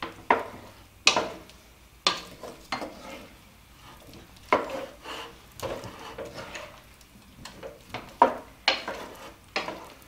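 Wooden spoon stirring chunks of raw potato, celery and onion in melted butter in a pot, knocking and scraping against the pot at irregular intervals.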